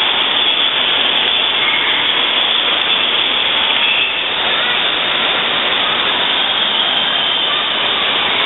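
Steady, loud rush of splashing and running water in an indoor water park, with faint distant children's voices and shrieks echoing over it.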